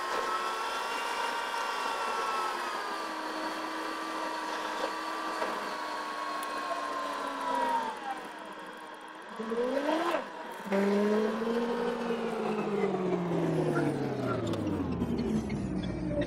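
Car engine running while driving, its pitch falling slowly as the car slows, then rising briefly about ten seconds in before falling again.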